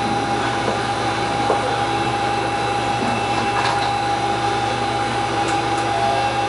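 Steady running noise inside a Heisei Chikuho Railway diesel railcar on the move: an even drone with a constant whine and a few faint clicks from the rails.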